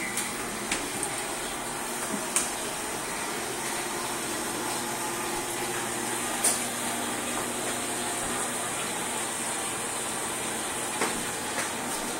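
Steady whooshing background noise indoors, with a few light clicks and knocks scattered through it, the clearest about six and a half seconds in.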